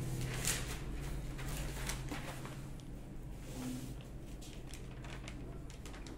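Steady low electrical hum with a scatter of faint clicks and rustles from hands fiddling with a whiteboard marker.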